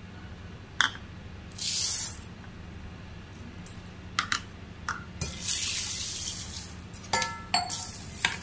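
Dry foxtail millet and green gram poured into a steel bowl, then water poured over them, with a short pour early on and a longer one in the middle. Spoon and bowls clink against the steel throughout, with ringing clinks near the end as the grains are stirred in the water.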